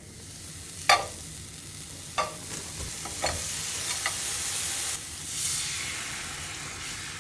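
A pot of frozen raspberries cooking down with honey and water, sizzling with a steady hiss. Four sharp clinks against the pot come about a second apart, the first and loudest about a second in.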